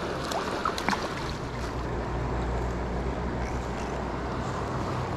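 Steady rush of river water flowing over a riffle, with a low rumble on the microphone throughout and a few brief faint chirps in the first second.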